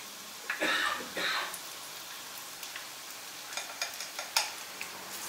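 Battered cauliflower florets sizzling as they deep-fry in hot oil, a steady hiss with two louder rushes near the start as more battered pieces go into the oil. Several short sharp clicks and pops follow, the loudest a little past four seconds in.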